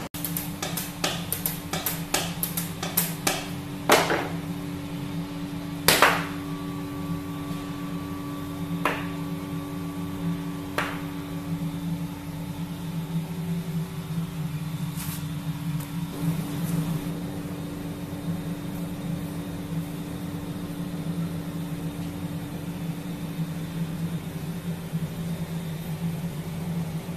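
Steady hum of commercial kitchen equipment, with a quick run of sharp clicks in the first four seconds and several heavier knocks, the loudest about four and six seconds in.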